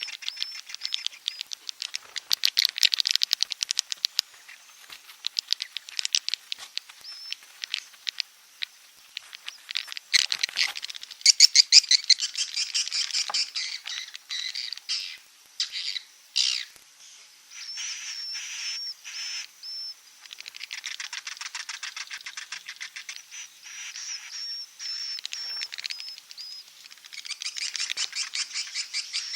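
Edible-nest swiftlet calls played as a lure sound for a swiftlet house: rapid buzzy chattering trills and high chirps in dense runs, thinning out for a few seconds about a third of the way in.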